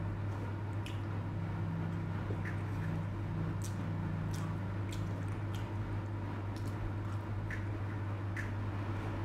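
Close-up mouth sounds of chewing soft sponge cake with the mouth closed: small wet clicks and squishes every second or so, over a steady low hum.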